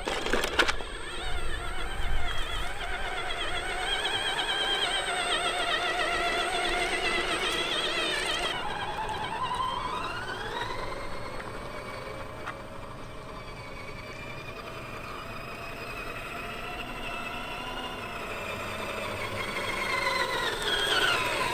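Motor and drivetrain whine of the RC4WD Desert Runner 1/10 scale RC truck, with a couple of knocks at the start. The pitch wavers as the throttle changes, climbs sharply as the truck speeds up about ten seconds in, holds steady, then drops as it slows near the end.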